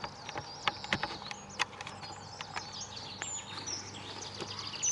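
Birds singing: many quick, high chirps and short trills throughout, with a few light clicks now and then.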